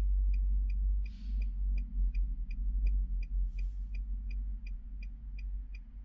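Nissan Maxima's hazard warning flasher ticking steadily, about three even ticks a second, over a steady low hum. Two brief rustles come about a second in and near the middle.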